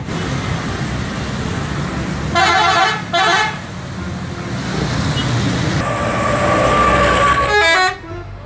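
Bus horns sounding over road traffic: two short multi-tone blasts about two and a half seconds in, a longer held tone later, and a quick run of stepping notes near the end.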